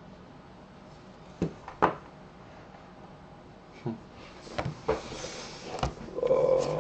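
A few sharp knocks and clicks, then a shrink-wrapped cardboard box handled and slid on a wooden tabletop, with a rustle of the plastic wrap near the end.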